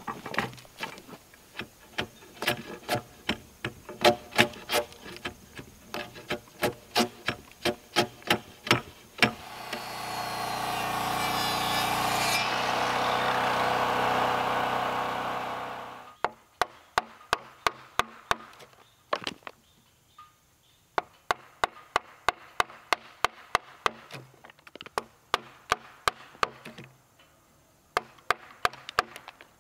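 Wooden mallet driving a timber-framing chisel into a beam end to cut a tenon, in strings of sharp blows about two a second. About ten seconds in, a corded circular saw runs for some six seconds and winds down, and then the mallet blows on the chisel resume in short runs.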